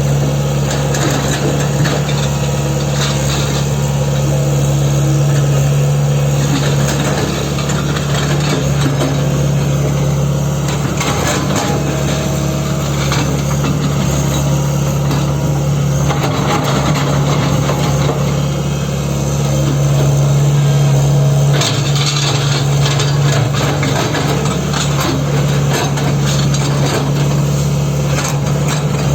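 Tata Hitachi Zaxis 120 excavator's diesel engine running steadily, with occasional metallic knocks and clanks from the machine working its track chain.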